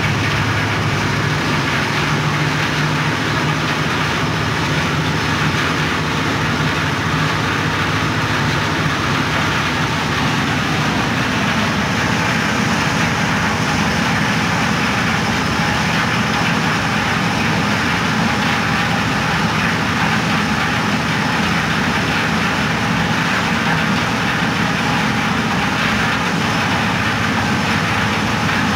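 Engine of a concrete mixing machine with a hoist running steadily under load while it mixes and lifts concrete. Its low note shifts about eleven seconds in.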